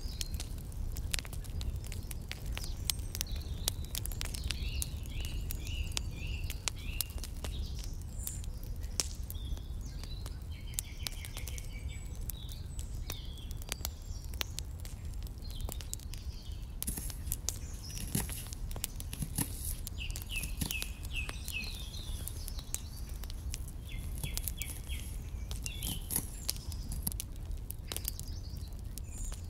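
Small knife tapping and cutting on a tiny wooden board, many light clicks, as a small onion is diced. Birds chirp in short trills at intervals over a steady low rumble.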